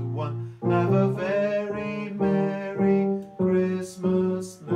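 Digital piano playing a slow run of sustained chords, each struck about once a second.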